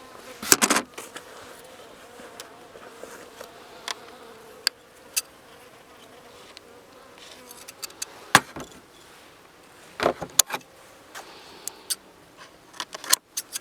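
Honeybees buzzing around the hive in a faint steady hum, broken by scattered sharp clicks and knocks from insulation wrap and tape being handled.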